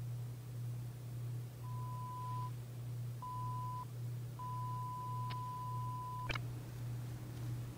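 Three electronic beeps on one steady pitch: the first two are short, and the third lasts about two seconds and is cut off by a sharp click. A steady low hum runs underneath.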